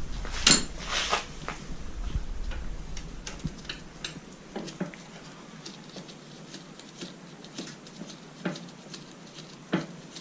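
Scattered light clicks and knocks of metal hand tools and parts being handled during motorcycle chain-and-sprocket work, irregular rather than rhythmic, with a sharper knock about half a second in and another near the end.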